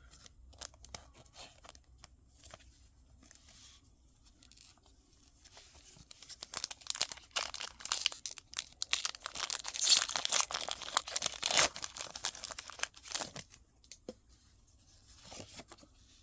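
Foil Pokémon booster pack wrapper crinkling and being torn open. After a few faint handling clicks, a dense crackle starts about six seconds in and runs for some seven seconds.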